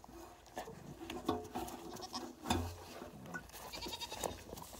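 Miniature goat bleating in short calls while its head is held up, with rustling from handling and a thump about two and a half seconds in.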